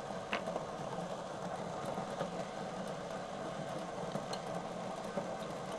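Shabu shabu broth simmering in a divided hot pot, a steady bubbling hiss, with a few faint clicks.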